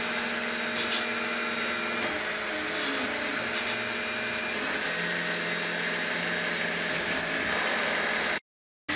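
Large 3D printer running a print: the stepper motors whine in steady tones that shift in pitch every second or two as the print head changes moves, over the even hiss of the cooling fans. The sound cuts out abruptly for about half a second near the end.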